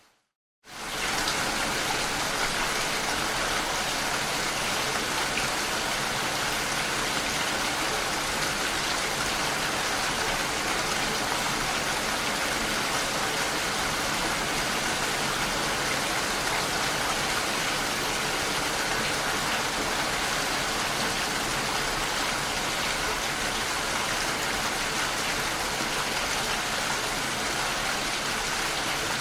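Steady rain hitting a window pane, a dense even patter with no let-up. The sound drops out for a moment at the very start and fades back in within about a second, where the rain recording restarts.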